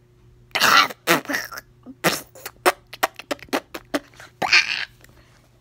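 A boy making beatbox mouth noises: hissing, spitting bursts and a quick run of sharp clicks and pops, a clumsy attempt that is 'not beatboxing'.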